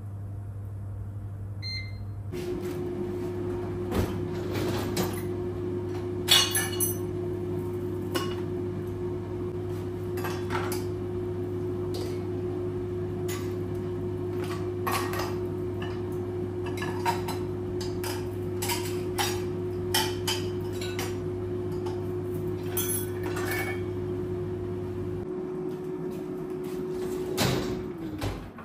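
Air fryer touch panel beeps, then the fan starts with a steady hum that runs until it drops away near the end. Over it, dishes, plastic containers and cutlery clink and clatter as they are lifted out of a dishwasher rack.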